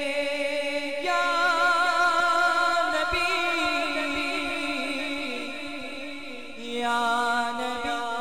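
A man singing a naat unaccompanied, drawing out long wavering notes. A new phrase starts about a second in and another near the end.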